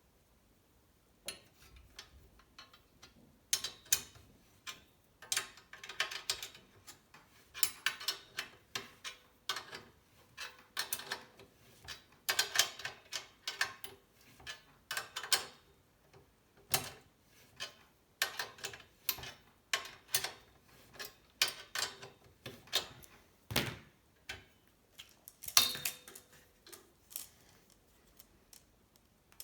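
Irregular metallic clicks and ticks from hand tools being worked on a steel bicycle frame while its rear triangle is spread apart (cold setting). The clicks come in uneven clusters, busiest through the middle, with a few louder knocks.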